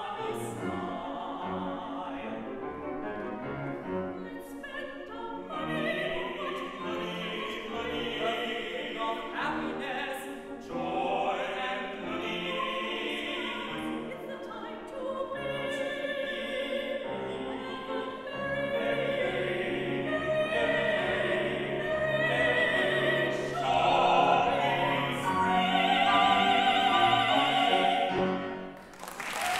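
Soprano, tenor and baritone singing an operatic ensemble with grand piano accompaniment. It grows louder over the last few seconds and ends on long held notes.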